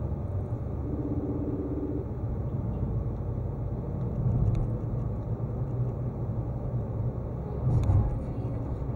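Car cabin noise picked up by a dashcam: a steady low rumble of engine and tyres as the car drives along and gathers speed. There are two brief louder bumps, about halfway through and near the end.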